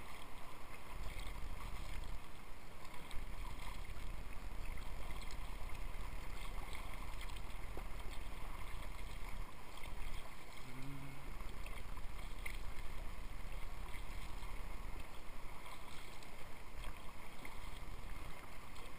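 Sea kayak being paddled: steady wash and splashing of seawater along the hull, over a steady low rumble. A short low hum comes about halfway through.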